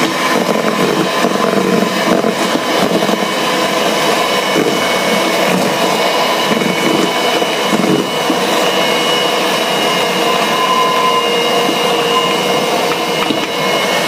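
Electric hand mixer running steadily, its beaters working the flour mixture into cake batter in a stainless steel bowl.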